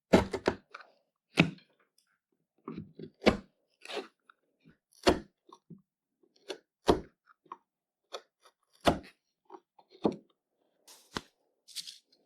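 Workshop handling noise: a series of separate wooden knocks and clacks, mostly about a second apart at uneven spacing, as wood parts and tools are set down and worked on a bench. A short scraping sound comes near the end.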